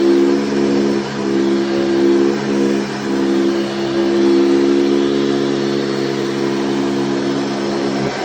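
Hoover Commercial Hardbag Elite upright vacuum cleaner running steadily, a motor hum over a fan hiss, with the loudness rising and falling slightly. Near the end the hum cuts off suddenly and a hiss remains.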